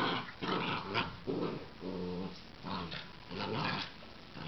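Two miniature dachshunds growling and snarling in rough play-fighting, a run of short growls following one another, some of them drawn out into a pitched growl.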